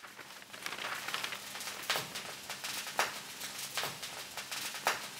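Fish fillets frying in a pan on the stove, a steady sizzle with irregular crackles and a few louder pops.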